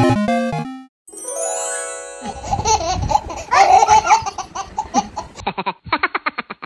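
Bright synthesized music ends about a second in, then a short run of musical tones. After that a baby laughs, and near the end a young child laughs in quick, rapid bursts.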